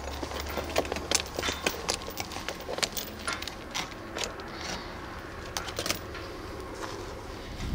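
Irregular sharp clicks and light rattles, several a second, over low wind rumble on the microphone that eases after about two seconds.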